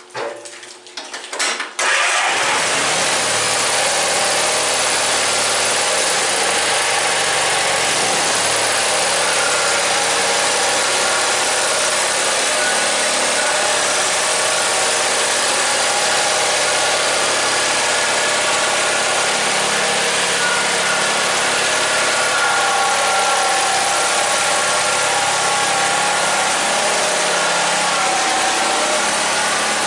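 Simplicity garden tractor engine cranked and catching about two seconds in, then running steadily as the tractor is driven on a test run after its bevel gearbox repair.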